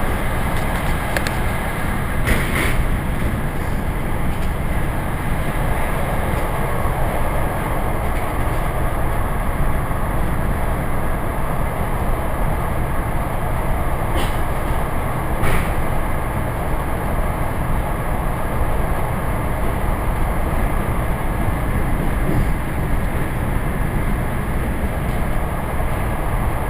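ED4M electric multiple unit heard from inside a passenger car while running: a steady rumble of wheels on rails and the moving train, with a few sharp clicks, one about two seconds in and two more around the middle.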